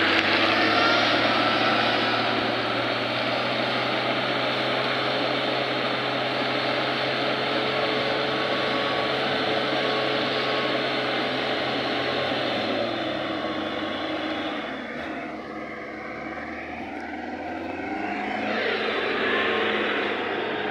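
4x4 engines revving hard while the vehicles spin and slide through mud. The engine note holds steady, falls away about twelve seconds in, and is quieter for a few seconds before rising again near the end.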